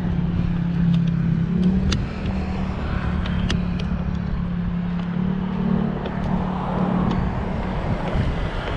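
A motor vehicle engine running steadily with a low hum, over street noise with a few light clicks and knocks.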